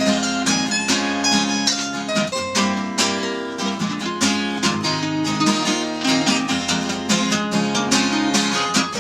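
Background music: an instrumental passage with quick, plucked notes and no singing.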